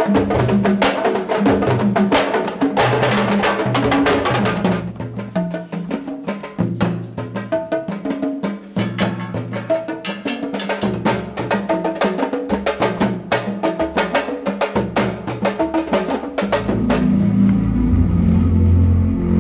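Drum-led music with quick, dense drum strokes over a low bass line. Near the end it changes to a heavier, steadier bass.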